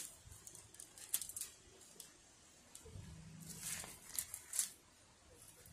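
Faint crinkling of aluminum foil as hands handle bacon-wrapped venison backstrap laid on it, in two short clusters of crackles, about a second in and again around four seconds in.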